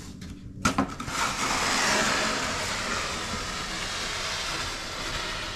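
Compact tractor engine running with a steady low hum. About a second in, a sharp click is followed by a loud rushing noise that swells and then holds.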